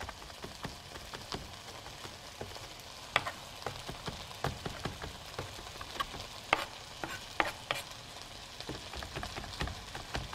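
A kitchen knife chopping fresh parsley and rosemary on a cutting board, making irregular sharp taps of the blade on the board, some much louder than others. Under it runs the steady sizzle of potatoes frying in olive oil in a skillet.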